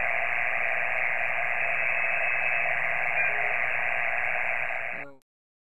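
Steady hiss of receiver band noise from a Kenwood TS-2000 transceiver's speaker, tuned across an empty 6-metre band with no signals on it. It cuts off suddenly about five seconds in.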